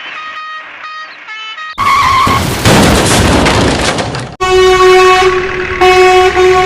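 Cartoon vehicle sound effects. A few short plinking notes, then a loud skidding, rushing vehicle noise lasting about two and a half seconds, then a horn sounding twice in long, steady honks.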